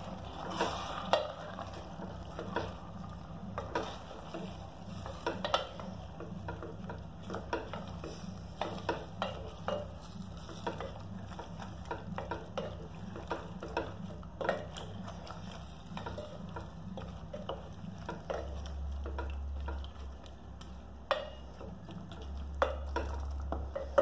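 Wooden spatula stirring chunks of jackfruit curry in a pressure cooker, with irregular knocks and scrapes against the pot throughout, over a steady low hum.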